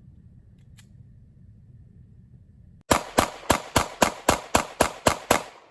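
Rapid semi-automatic gunfire: about ten shots fired quickly, roughly four a second, each a sharp crack with a short ring, after a few seconds of faint low rumble.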